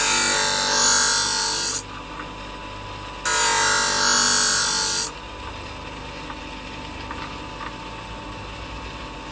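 Twice as Sharp scissor sharpener's motor running with a steady hum, and two loud grinding passes of about two seconds each, the second starting about three seconds in, as a kitchen-scissors blade in the holder is drawn across the spinning wheel.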